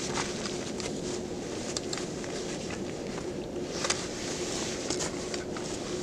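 Rustling of a nylon jacket and backpack, with scattered clicks and knocks of buckles and gear, as a backpack is swung off the shoulders and hung on a tree branch; a few footsteps shift in the snow.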